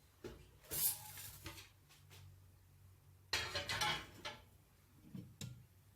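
Kitchen utensils knocking and scraping against a blender jar as grated ginger is added to the cut lemon: a sharp scrape about a second in, a longer scrape of about a second past the halfway point, and a few light taps near the end.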